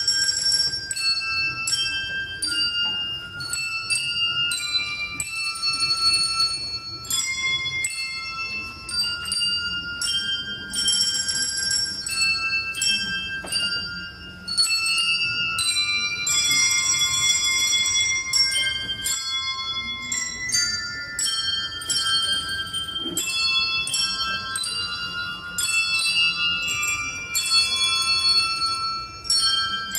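Handbells ringing a melody. Notes are struck in turn and often several together in chords, each tone ringing on after the strike.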